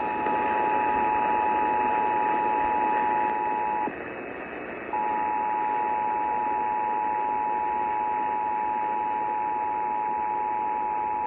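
Emergency Alert System attention signal: the steady two-tone alarm (853 and 960 Hz together), received over the air with static hiss under it. It breaks off for about a second around four seconds in, then comes back and holds.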